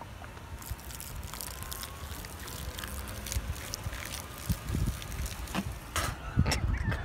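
Wind buffeting a phone's microphone, with scattered splashes and crackles as liquid is poured from a cup onto a person lying on grass, and a loud knock near the end.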